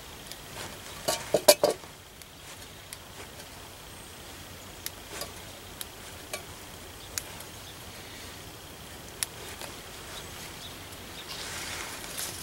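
Hands stripping fresh mint leaves from their stems and pressing them into a stainless steel cup: a quick cluster of sharp clicks about a second in, scattered single clicks after, and light rustling near the end.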